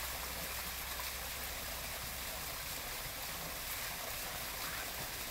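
Water running steadily down a small rock waterfall into a pool, a continuous even splashing hiss.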